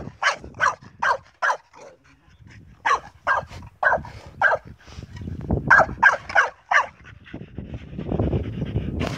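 Staffordshire bull terrier barking in quick runs of three or four, about three runs in all. Near the end a shovel scrapes and digs into dry, sandy soil.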